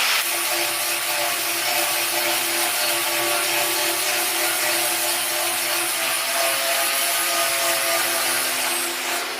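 Angle grinder grinding steel: a loud, steady grinding hiss over a constant motor whine.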